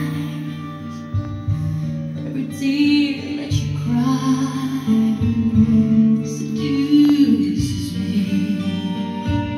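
Music played from a vinyl record on a Denon DP-59L turntable: guitar-led music with a singing voice.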